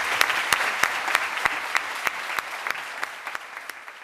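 Audience applauding, dense clapping with a few sharp single claps standing out, growing steadily quieter and dying away.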